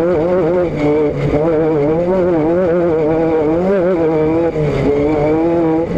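A vehicle engine running continuously under way, its pitch wavering slightly up and down.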